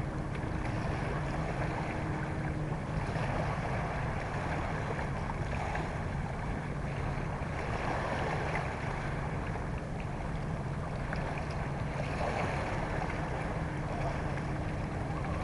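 Outdoor shoreline ambience: wind on the microphone and small waves washing over the rocks, with a low steady hum underneath. A faint higher tone in the hum fades out about three seconds in and comes back near the end.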